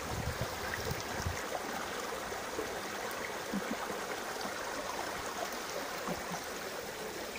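Shallow river water running steadily out of a row of large concrete culvert pipes, with a few low bumps in the first second or so.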